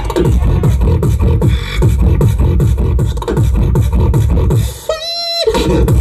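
Human beatboxing amplified through a club PA: a fast, dense beat of deep kick-drum bass and sharp snare-like hits. About five seconds in the bass drops out for a short, high held vocal note before the beat resumes.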